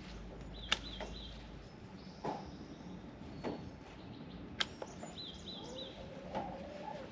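Hand pruners snipping through woody snowball-bush (viburnum) stems: five sharp clips at irregular intervals. A small bird chirps quickly twice in between, and a long rising animal call begins near the end.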